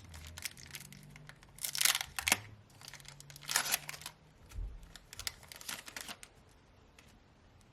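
Foil booster pack of Pokémon trading cards being torn open and crinkled by hand, with the loudest tears about two seconds in and again around three and a half seconds, then fainter crinkling.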